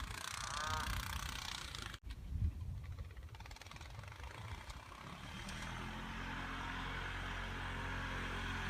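Honda Foreman 450 ATV's big single-cylinder engine, running unevenly with low thumps at first, then settling into a steady idle from about halfway through. A single honk sounds in the first second.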